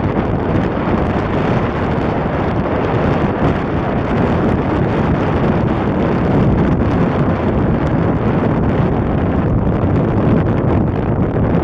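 Strong wind buffeting the microphone: a loud, steady rumble and rush that goes on without a break.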